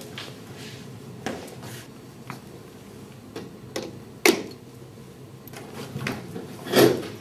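Handling sounds: a sharp click about four seconds in as a plug is pushed into a wall outlet, among scattered small knocks and steps, then a louder knock near the end.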